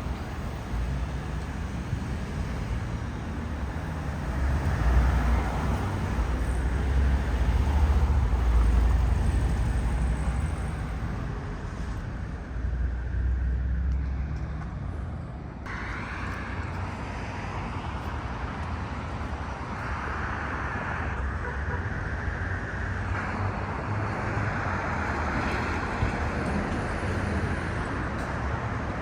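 City street traffic: cars passing steadily, with a heavier vehicle's rumble swelling and fading about five to ten seconds in.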